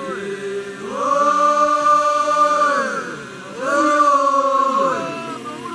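Voices singing together in a chant, swelling into two long held notes, the first about a second in and the second just after the middle.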